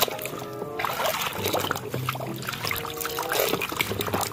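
A hand sloshing and splashing through muddy water in a plastic basin, with irregular splashes and trickles as it rummages for a toy.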